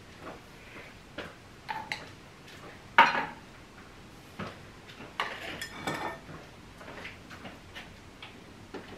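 Kitchen clatter of pots, pans and metal utensils: scattered knocks and clicks, one loud clank with a short ring about three seconds in, and a run of ringing clinks about five to six seconds in.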